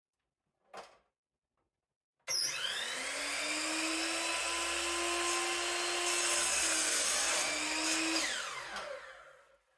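A Bosch miter saw's motor starts up with a rising whine, runs steadily and dips briefly as the blade cuts through a strip of African mahogany, then is switched off and winds down, its pitch falling as it fades. A light knock comes about a second in, before the motor starts.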